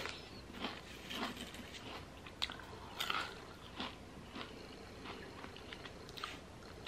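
Close-up crunching and chewing of Quest protein chips, with sharp crunches about twice a second that thin out to softer chewing after about four and a half seconds.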